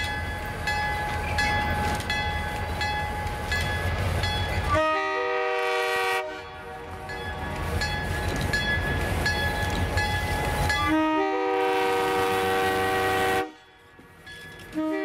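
EMD F-unit diesel locomotives passing close by at low speed, engines rumbling and the bell ringing steadily. The multi-chime air horn sounds two long blasts, the first about five seconds in and a longer one about eleven seconds in, and a third blast starts at the very end.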